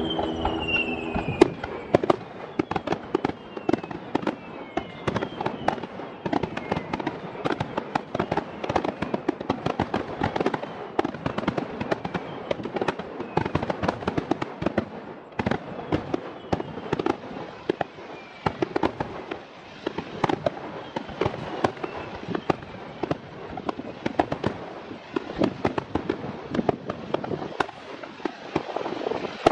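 Fireworks display: a dense, continuous barrage of bangs and crackles from bursting aerial shells, with a few whistles falling in pitch near the start.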